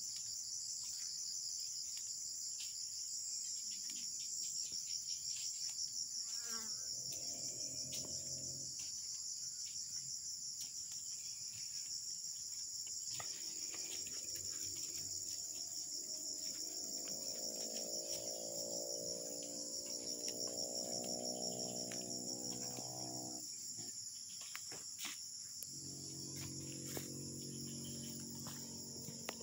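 Dense, high-pitched insect chorus, steady with a fast shimmering pulse. Underneath it a lower droning sound comes and goes, and scattered light clicks are heard.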